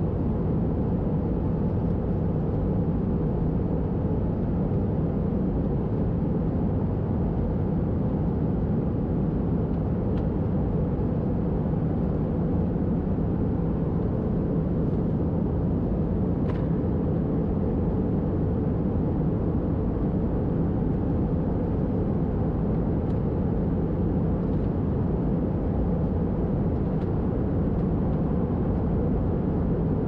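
Steady in-flight cabin noise of an Airbus A320-214, heard from a window seat: the rush of air past the fuselage and the drone of its CFM56 engines, with a steady low hum beneath and no change in level.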